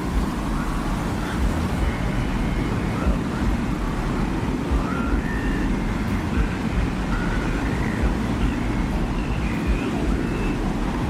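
Designed desert wind ambience: a steady low rumble of wind, with faint short high tones coming and going above it.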